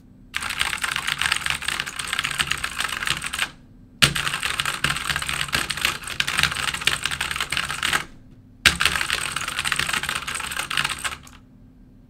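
Fast typing on an AUKEY 87-key mechanical keyboard with clicky imitation Cherry MX blue switches. It comes in three long runs of rapid clacking with short pauses between them.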